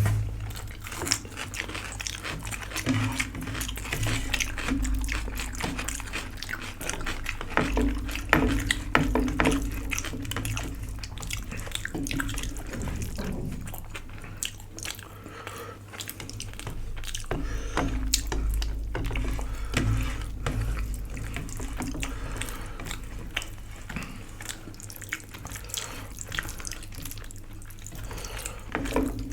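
Wet chewing and smacking sounds of eating dal and rice, made up of many short clicks and squelches.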